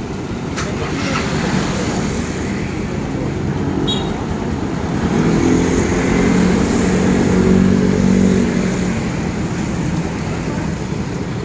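A motor vehicle engine running with a low rumble that swells louder about halfway through, then settles back.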